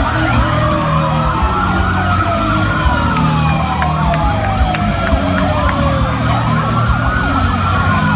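Several police sirens wailing at once, overlapping, each sweeping up and then slowly down in pitch, over a steady low rumble.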